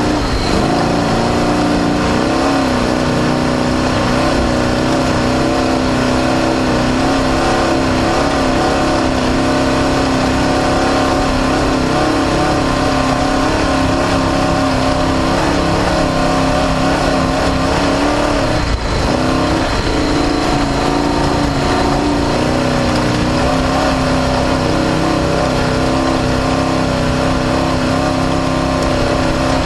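Off-road race car's engine running hard at high, fairly steady revs, heard from on board with a dense rush of noise over it. The revs dip briefly near the start and again about two-thirds of the way through.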